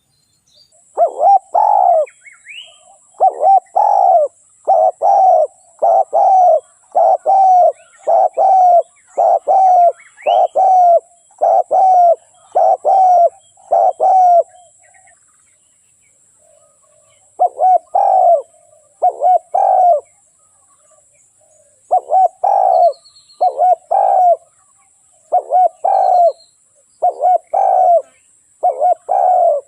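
Spotted dove cooing: a long run of short, low coos, a little more than one a second, breaks off for about three seconds and then starts again. Faint high chirps of small birds sound behind it.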